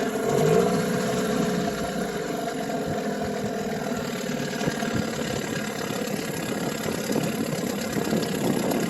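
Johnson 9.9 two-stroke outboard motor running at idle just after starting, briefly rising in the first second and then settling to a steady idle.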